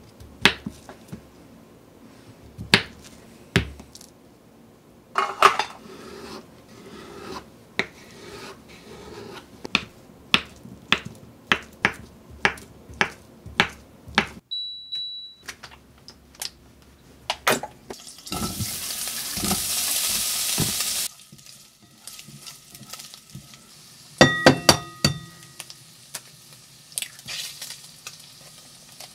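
A kitchen knife chopping Spam into cubes on a wooden cutting board, a long run of sharp knocks, about two a second toward the middle. Then a short electronic beep from the induction cooktop, a few seconds of hissing, and a quick cluster of ringing clinks against the pan.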